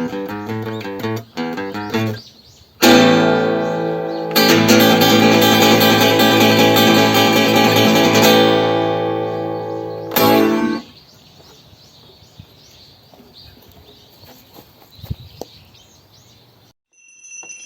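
Acoustic guitar music: picked notes, then a loud strummed chord that rings on for several seconds and cuts off about ten seconds in, leaving faint background noise with a few light clicks.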